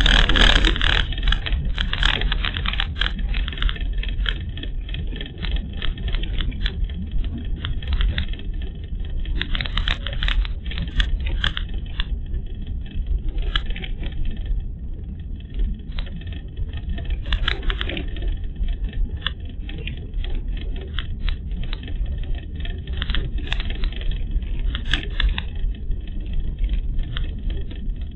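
Car driving on a rural road, heard from inside the cabin through a dashcam: a steady low road and engine rumble with frequent small clicks and rattles. There is a louder rush right at the start.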